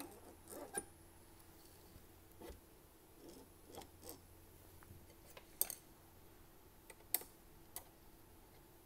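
Sparse light clicks and metallic taps from handling the CNC's diamond drag tool over a brass tag, with a few sharper clicks about five and a half and seven seconds in, over a faint steady hum.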